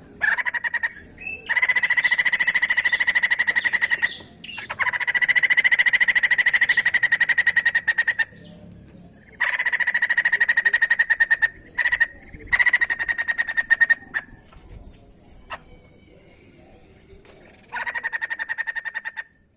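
White-crested laughingthrush calling in bouts of very rapid, repeated chattering notes, each bout from a fraction of a second to about four seconds long, with short pauses between.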